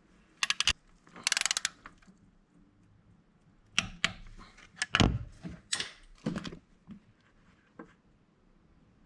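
Hand-tool work on a car engine: a short, rapid run of ratchet-like clicks about a second in, then several separate knocks and clinks.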